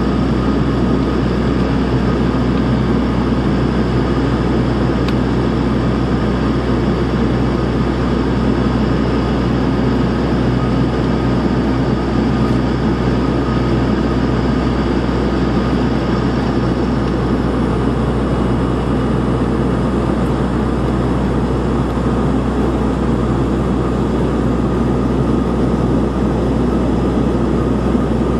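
Steady engine and airflow drone inside the cabin of a turboprop airliner in level flight, with a constant low hum and no change in pitch.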